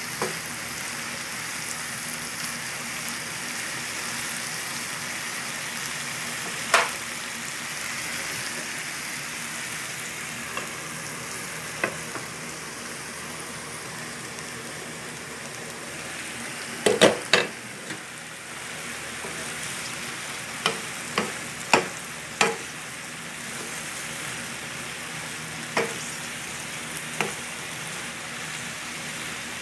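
Summer squash wedges sizzling steadily as they fry in oil in a nonstick pan. Sharp knocks and clinks from the wooden spatula and the glass pan lid come and go, with several close together past the middle.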